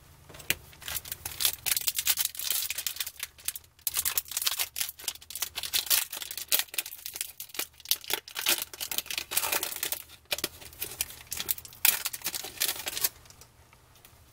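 A foil 2004 Bowman's Best football card pack being torn open and crinkled in the hands: a dense crackling rustle that starts about half a second in and stops about a second before the end.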